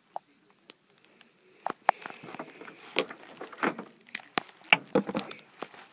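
Plastic wrestling action figures being handled and moved about a toy ring: a run of small clicks, taps and rustles that starts about two seconds in and thins out near the end.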